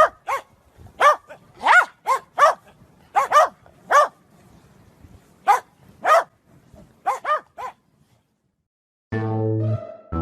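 A dog barking repeatedly: about fifteen short, high barks in irregular bursts, stopping after about seven seconds. Music starts near the end.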